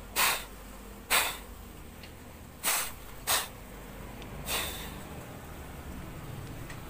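Five short hissing puffs of air, each lasting a fraction of a second, coming at uneven intervals over about five seconds.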